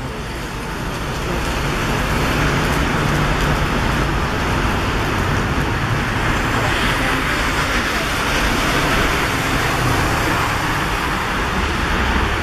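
Heavy rain falling on a city street, a steady hiss mixed with road traffic, swelling over the first two seconds and then holding.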